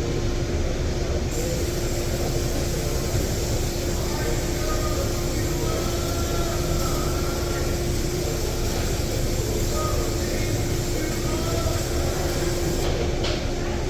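Steady mechanical running noise with a constant low hum, unbroken throughout.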